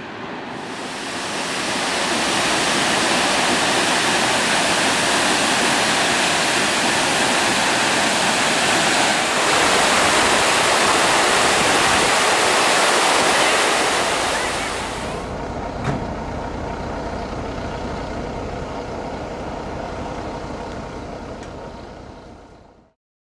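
Waterfall's rushing water, a loud steady wash of noise. After about 15 seconds it drops to a quieter low rumble with a single knock, then fades out near the end.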